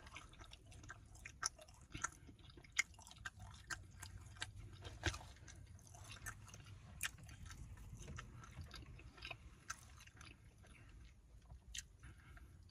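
A person chewing a mouthful of naan dipped in sauce: faint, irregular wet mouth clicks and smacks.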